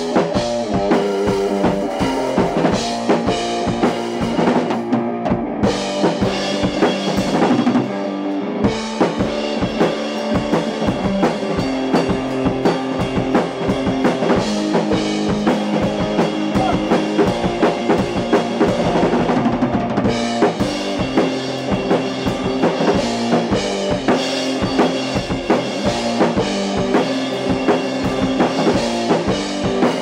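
A single-cutaway electric guitar through an amplifier and a drum kit playing together in a live jam: sustained guitar notes and chords over a steady, busy drum beat.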